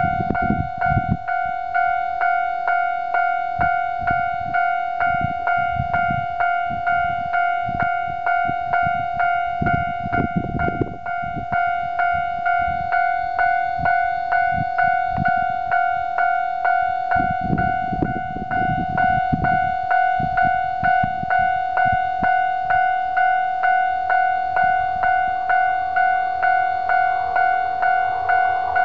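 Japanese level-crossing warning bell ringing steadily, about two strikes a second, each strike one ringing tone. Low rumbles come and go underneath, and near the end a rushing noise builds as a train approaches.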